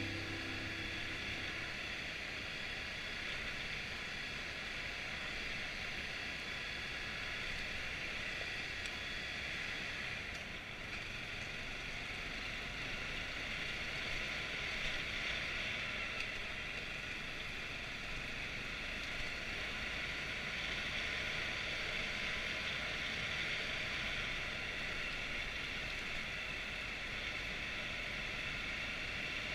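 Honda CRF250L's single-cylinder four-stroke engine running at steady trail speed under a constant rush of wind over a helmet-mounted camera microphone.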